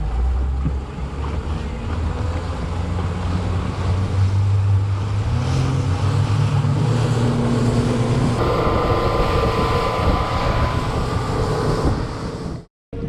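Outboard motor of an aluminum fishing boat under way, its pitch climbing over several seconds as the boat speeds up, with wind buffeting the microphone. The sound changes abruptly about eight seconds in and drops out briefly near the end.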